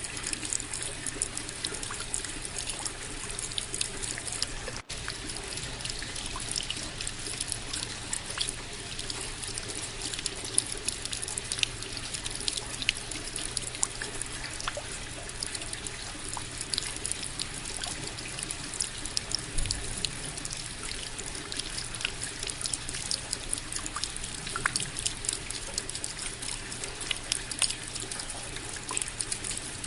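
Steady rain: a dense patter of individual drops over an even hiss. The sound cuts out for an instant about five seconds in.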